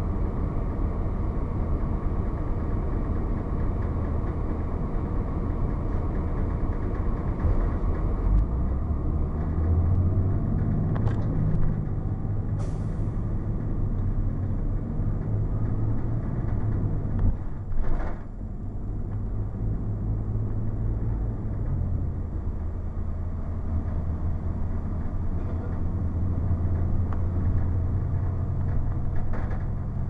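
Cummins ISC straight-six diesel of a 2002 Blue Bird CS transit bus running under way, heard from inside the cabin with road noise. Its low drone grows stronger about a third of the way in, drops briefly with a sharp knock a little past halfway, then carries on steadily.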